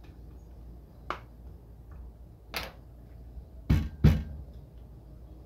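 Four sharp knocks on a small Bose cube speaker's housing as its glued-in front is pressed and tapped home past the retaining tabs; the last two, close together, are the loudest and heaviest.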